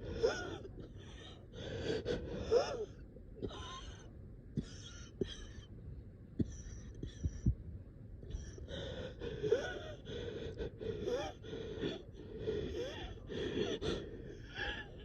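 A person short of breath taking a string of short, gasping breaths with a squeaky wheeze in them, unable to get a full deep breath. The breathing eases for a couple of seconds in the middle, then comes again faster near the end.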